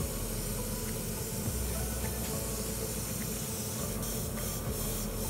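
Airbrush spraying paint onto a small plastic part, a steady hiss of air and paint with brief pulses near the end.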